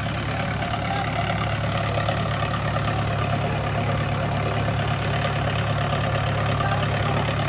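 Farm tractor's diesel engine running at a steady speed under load while it crawls up a steep soil slope in low gear.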